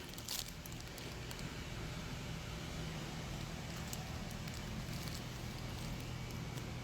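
Steady low hum and hiss of room background noise, with a few faint clicks and rustles.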